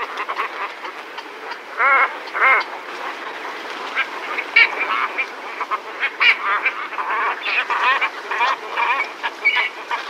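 Pygmy cormorants calling: a dense run of short, overlapping calls, with two louder wavering calls about two seconds in.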